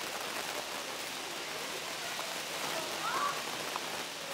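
Steady outdoor background hiss with a short chirp-like call about three seconds in.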